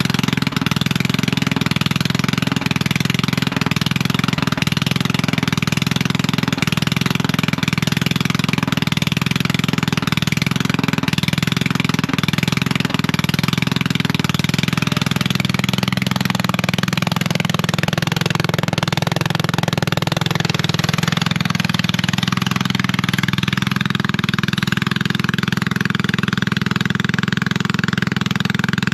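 Straight-piped ride-on lawn mower engine running loudly and steadily, its note changing about two-thirds of the way through. The owner says it still runs poorly on a cheap new carburettor.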